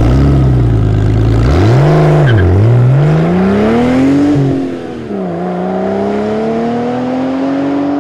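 Car engine running at a steady idle, blipped up and down, then revving up under acceleration; the pitch falls back about five seconds in and climbs again.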